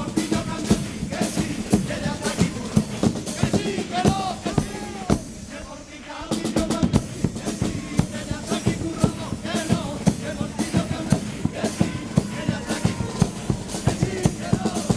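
Chirigota band music: bass drum and snare drum beating a quick march-like rhythm under guitars and a pitched tune. The music thins out for about a second around five seconds in, then comes back at full strength.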